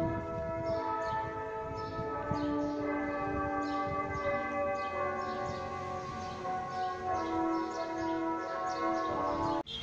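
Church bells ringing, several tones overlapping and changing as new strikes come in about twice a second; the ringing cuts off suddenly near the end.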